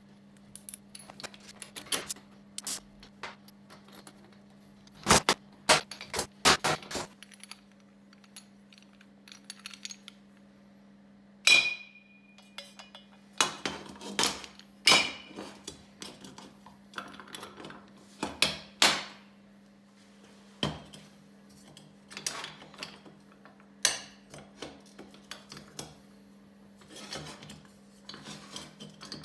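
Clinks, taps and knocks of small metal parts, pot magnets and steel square tubing being handled on a metal workbench as a magnetic welding holder is assembled and fitted to the tubing. One sharp ringing clank comes a little before halfway, all over a steady low hum.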